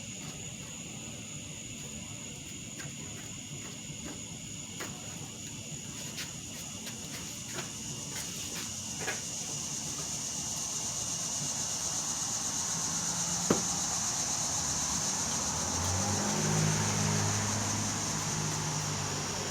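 A motor vehicle passing, its noise building to its loudest near the end. Under it there is a steady high-pitched tone and a few light clicks, with one sharper click about two-thirds of the way through.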